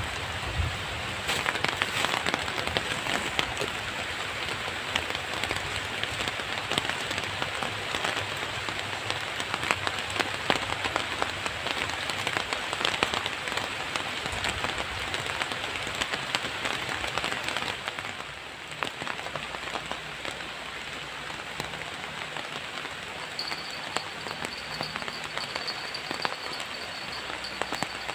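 Steady rain falling, a dense patter of drops that eases a little about two-thirds of the way through.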